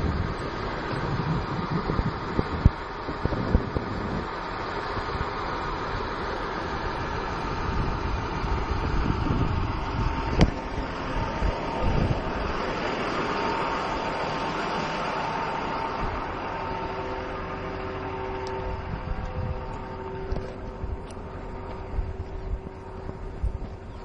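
Diesel engine of a motor grader running steadily as the machine travels, heard from on board, with wind gusting on the microphone.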